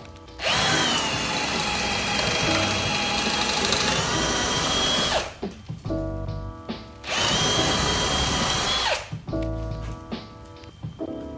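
Power drill running under load, boring through wooden studs in two runs, the first about five seconds long and the second about two, each with a steady high whine. Background guitar music plays between the runs.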